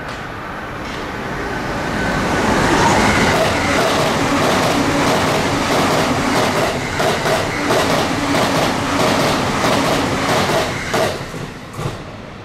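A JR E259 series Narita Express passing at high speed, its wheels clacking over rail joints in a quick, steady run of beats. The train noise builds over the first two seconds and fades near the end, with one last clack just before it dies away.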